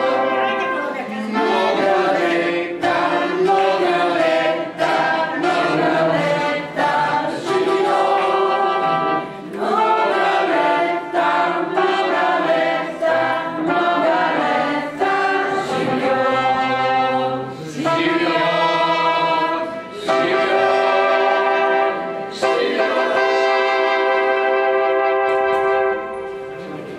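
Live singing by a woman and a man into microphones, accompanied on an electronic Korg keyboard and played through a PA speaker, in continuous sung phrases with short breaths between them.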